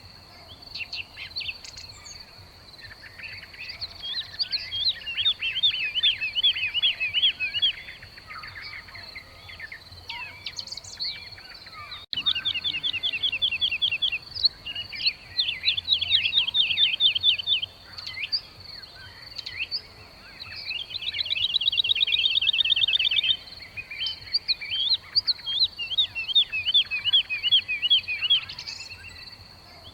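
Weaver birds chattering and calling in a colony: bursts of rapid, buzzy chatter, with a fast even trill about two-thirds of the way through. A steady high-pitched whine runs underneath.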